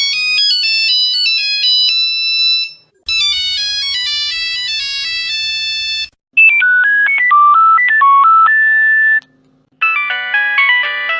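A sequence of Nokia mobile phone ringtones played one after another, each a short electronic melody a few seconds long with a brief gap between them. The first two are high-pitched beeping tunes, the third is lower and ends on a held note, and the last has several notes sounding at once.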